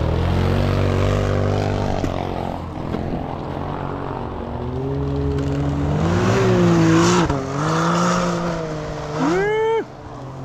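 Engines of tracked off-road vehicles running and revving as they plough through deep powder snow; the pitch rises and falls with the throttle, and one engine revs up steeply near the end and cuts off suddenly.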